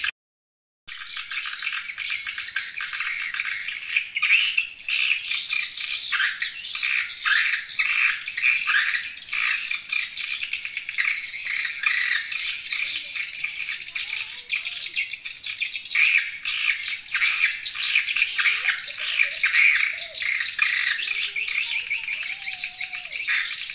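Swiftlet lure call (suara panggil walet) of the kind played to draw swiftlets to a nesting house: a dense, continuous chorus of high-pitched swiftlet chirps and rattling twitters. It cuts out for under a second at the very start, then runs on unbroken.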